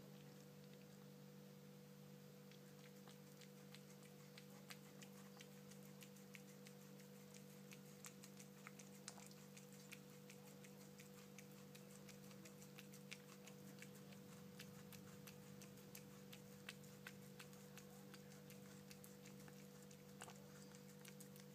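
A cat chewing and licking a strawberry held out to it: faint, irregular clicks, most frequent in the middle, over a steady low hum.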